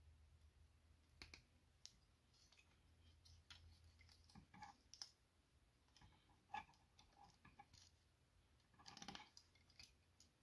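Faint, scattered clicks and taps of small plastic toy-figure parts being handled and snapped together, with a short cluster of clicks about nine seconds in.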